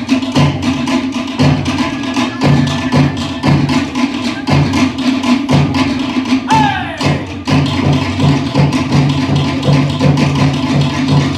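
Tahitian drum music: fast, even strokes on wooden slit drums (to'ere) over a steady low drum beat, with a brief falling call about seven seconds in.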